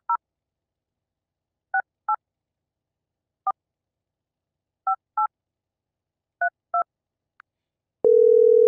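Telephone keypad touch-tones dialing a number: nine short two-tone beeps in irregular groups of one and two. About eight seconds in, a steady ringing tone starts on the line as the call goes through.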